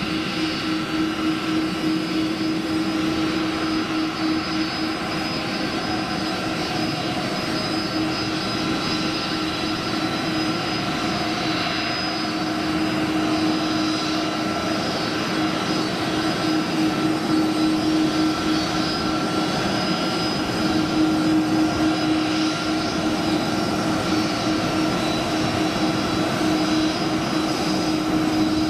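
Twin Pratt & Whitney PW4000 turbofans of an Airbus A330-223 running at taxi power: a steady jet whine and hum that grows a little louder in the second half.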